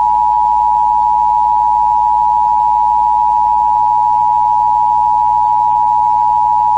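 Emergency Alert System attention signal: the loud, steady two-tone alert (853 Hz and 960 Hz sounded together), held without a break.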